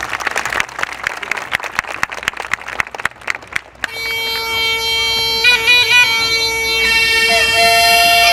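Audience clapping. About four seconds in, music starts: a steady held drone note under a reedy melody.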